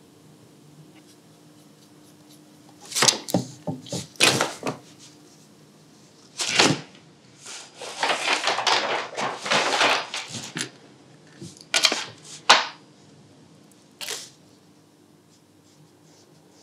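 Fine ink brush scratching and swishing across paper in a series of strokes, most short, one lasting about two seconds, over a faint steady hum.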